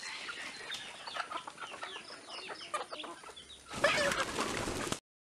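A flock of native chickens clucking in many short calls while foraging. About four seconds in, a sudden louder flurry of noise as one bird moves close by, then the sound stops abruptly.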